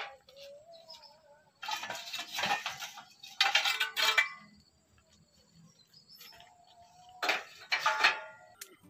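Steel pipes clanking and scraping against each other and the metal rack as they are handled and shifted. There are three clusters of knocks, about two seconds in, around three and a half to four seconds in, and near the end.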